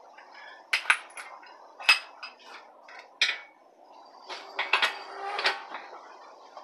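Metal tools and car parts clinking and clanking during wheel bearing replacement work. The sharp knocks come at uneven intervals, with a cluster about four to five and a half seconds in, and some ring briefly.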